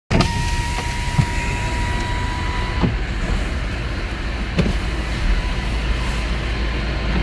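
A vehicle running with a steady low rumble. A steady high tone sounds for about the first three seconds, and there are a few light knocks.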